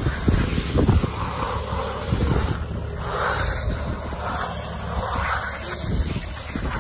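Tractor engine running while its front-mounted bale wrapper winds black stretch film round a stack of small square bales, with wind buffeting the microphone.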